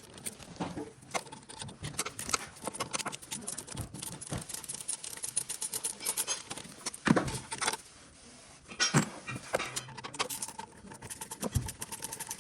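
Metal hand tools clinking and knocking during engine-bay work, with runs of rapid clicking and a few louder knocks about seven and nine seconds in.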